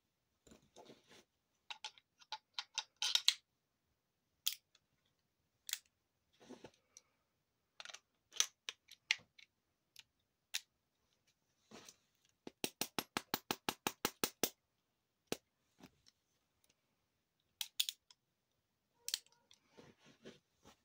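Metal clicks and knocks of an 1851 Navy cap-and-ball revolver being reassembled and handled, parts fitting together in irregular clacks. Partway through comes a fast, even run of about fifteen clicks, a few per second, typical of the cylinder being turned through its stops.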